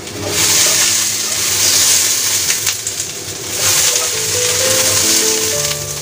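Snow peas sizzling in a hot wok as they are stir-fried and turned with a spatula, with background music playing over it. The sizzle eases off a little after about three and a half seconds.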